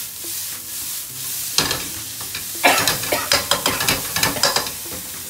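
Chilli, garlic and ginger paste sizzling in hot oil in a nonstick frying pan, with a spatula stirring and scraping it in a quick run of sharp strokes from about a second and a half in, loudest in the middle.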